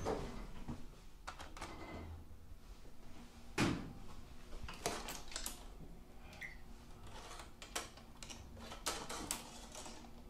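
Metal clicks and knocks from a small stainless-steel phone cabinet door on an elevator car's control panel being opened and handled. There is one sharper knock a few seconds in and a run of lighter clicks in the second half.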